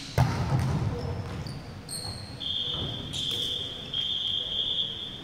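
A volleyball spiked hard, one sharp smack about a moment in that rings through the hall, followed by players' voices and a long, steady, shrill high tone starting about halfway through.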